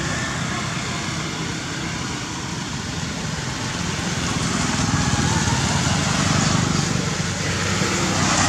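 Steady engine rumble with a hiss over it, swelling slightly about halfway through, as from a motor vehicle running.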